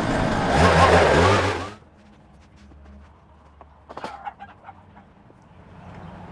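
A small petrol engine running loudly, its revs wavering, stops abruptly about two seconds in. After it comes a low background with a few faint clicks and short chirps.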